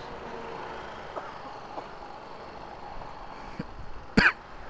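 Steady low vehicle noise of idling scooters and road traffic, with a few faint ticks. A short, sharp, loud sound about four seconds in is the loudest thing heard.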